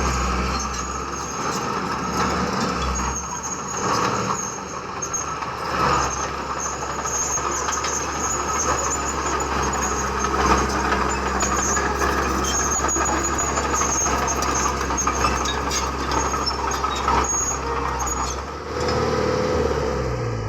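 Heavy diesel earthmoving machinery running steadily, with high metallic squealing and scattered clanks.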